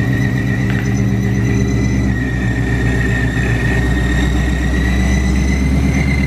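2022 Ford Mustang GT's supercharged Coyote 5.0 V8 idling on its first start after an ESS G3x supercharger install. A steady high whine, most likely from the blower's straight-cut gears, rides over the engine's low rumble, and the idle settles about two seconds in.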